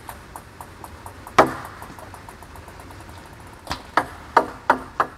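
Table tennis serve: one sharp knock of the celluloid-type ball about a second and a half in, then near the end a quick run of light clicks as the racket strikes the ball and it bounces on the table. The serve is a left-sidespin short serve, meant to bounce twice on the far side.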